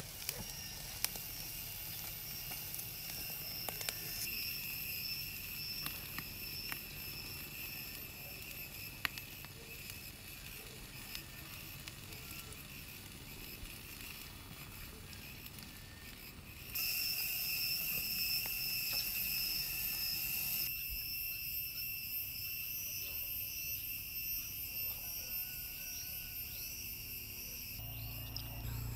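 Insects trilling steadily in a high, even tone, with scattered small clicks and crackles in the first half; the trill gets louder about 17 seconds in.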